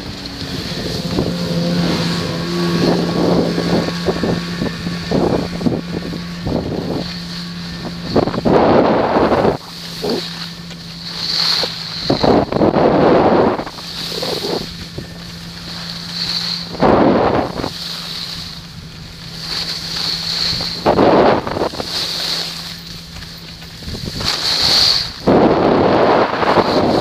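Skis running downhill on groomed snow, with wind rushing over the microphone. Loud surges of scraping come every few seconds as the ski edges bite in through the turns.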